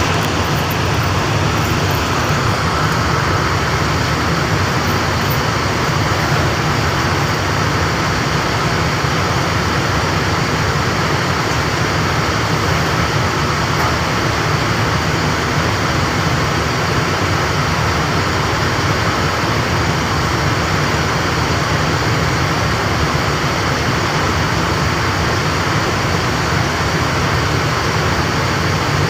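Loud, steady machinery running without a break, with a faint high whine over a low, even rumble.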